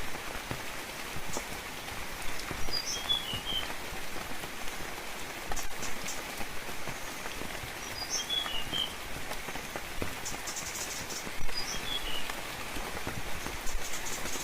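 Steady rainfall with scattered drips pattering on leaves. A bird gives a short phrase of high chirps three times, roughly every four to five seconds.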